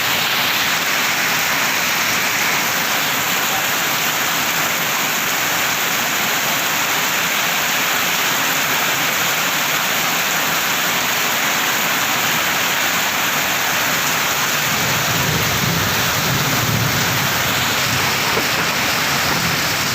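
Heavy rain falling steadily, with a low rumble of thunder building over the last few seconds.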